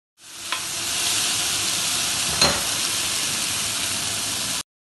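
Chopped onions and tomatoes sizzling as they fry in a pan: a steady hiss that fades in at the start and cuts off suddenly near the end. Two short knocks come through it, the louder about two and a half seconds in.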